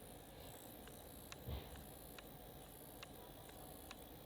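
Near silence: room tone with faint, evenly spaced ticks about every three-quarters of a second, and one soft low thump about one and a half seconds in.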